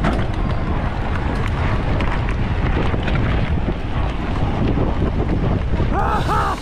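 Wind rushing over a rider's action-camera microphone as the bike gets under way, a steady loud rumble; a voice calls out near the end.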